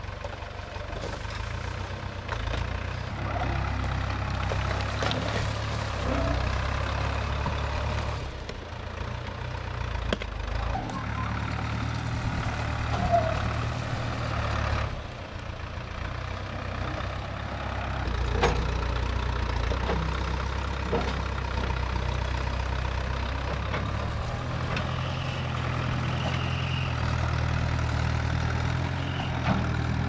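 Tractor-loader-backhoe engine running as the front bucket pushes through dirt and scrap lumber, its note shifting several times as the machine works, with a few sharp knocks along the way.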